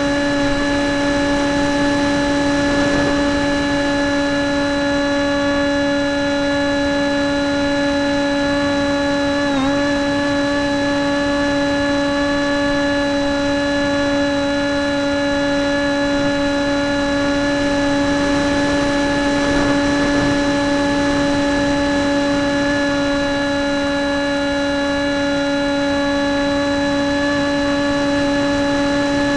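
Motor and propeller of a radio-controlled model airplane, heard from an on-board camera in flight: a steady whine at constant pitch that dips briefly about ten seconds in, over a rushing hiss.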